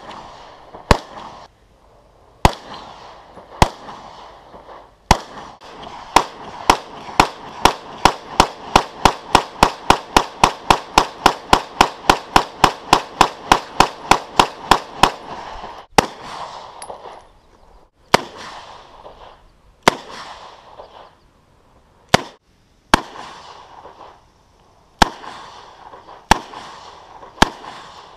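Pistol gunshots, each with a short echo. A few shots spaced about a second apart come first, then a long fast string of about three to four shots a second for some ten seconds, then single shots every second or two again.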